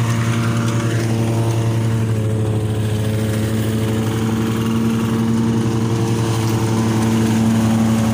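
Engine of a rice thresher running steadily at a constant speed while rice stalks are fed into it: a steady drone with a clear, unchanging pitch.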